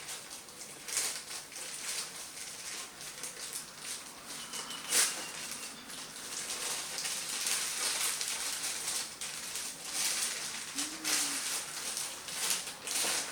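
Scissors cutting open plastic packaging, with the plastic crinkling and rustling in irregular bursts and one sharp click about five seconds in.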